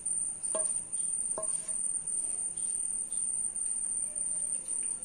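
A cricket chirping continuously in a high, pulsing trill. About half a second and a second and a half in come two short knocks of a ladle against the pan as the thick, hot sweet is worked out onto a plate.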